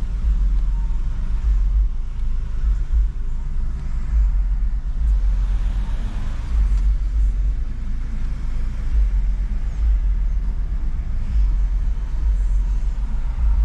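Honda Civic Type R (FL5) on the move, heard from inside the cabin with a window down: a steady low rumble of road and wind noise that swells and eases slightly.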